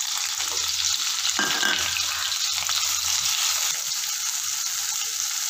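Shallots and chopped tomato sizzling in hot oil in a kadai while a wooden spatula stirs them: a steady frying hiss.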